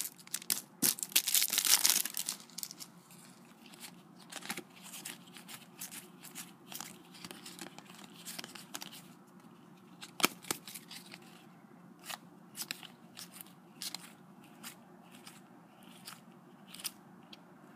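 Foil trading-card packet being torn open and crinkling, loudest in the first two seconds, followed by quieter scattered ticks and rustles of the cards being handled and flipped through.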